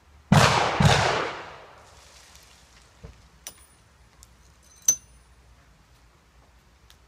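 Two gunshots about half a second apart, each trailing off in a long echo. A few seconds later come several light metallic clinks as a ramrod is worked in the barrel of a muzzle-loading pistol, the last clink ringing briefly.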